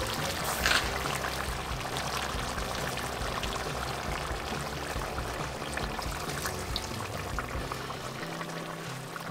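Beef stew bubbling and spitting in a cast-iron potjie pot over wood coals, a steady fine crackling hiss, with one brief louder burst of noise about a second in.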